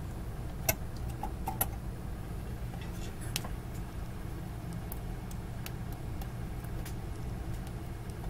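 A few small sharp clicks and taps from a new lithium backup battery and its wire leads being worked into a circuit board, mostly in the first half, over a steady low hum.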